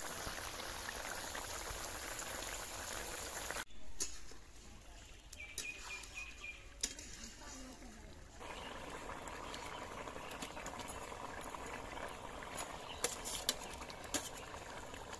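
Fish curry boiling hard in a metal kadai over a wood fire, bubbling and hissing, with a few sharp clicks of a metal spatula against the pan near the end.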